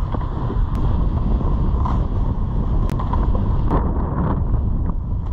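Wind buffeting an action camera's microphone, a loud, steady rumble with a hiss above it, while the snowboard slides over snow. A few sharp clicks stand out.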